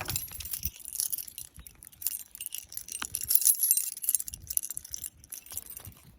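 A metal keychain and key jingling and clinking as the keychain is worked onto the key ring, busiest and loudest about three and a half seconds in.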